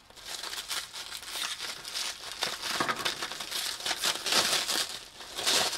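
Clear plastic packaging film being handled and pulled open by hand, crinkling and crackling continuously, louder in the second half.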